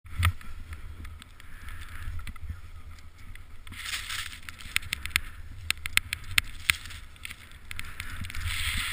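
Riding at speed through deep powder snow: a steady low rumble of wind on the body-worn camera's microphone, with swelling hiss of snow spray and a cluster of sharp clicks in the middle.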